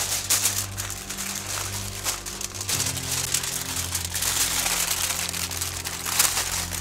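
Aluminium foil and baking paper crinkling and rustling as hands fold them around a whole fish. Soft background music with sustained notes plays underneath.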